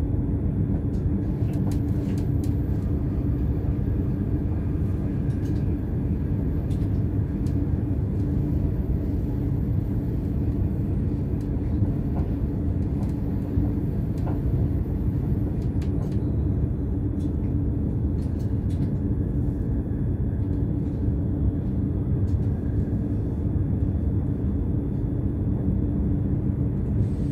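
A BLS RABe 515 electric double-deck multiple unit running at speed, heard from the driver's cab: a steady low rumble of wheels on rail under a steady hum, with a few faint clicks.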